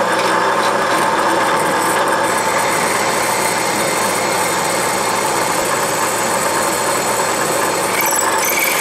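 Delta drill press running as a 5/16-inch twist drill cuts into a cast iron casting, a steady motor hum with an even cutting noise, with faint high squeaks near the end.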